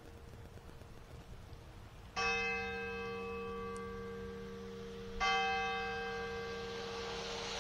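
A single large church bell tolling: two strikes about three seconds apart. Each strike rings on with a long, slowly fading hum that carries into the next.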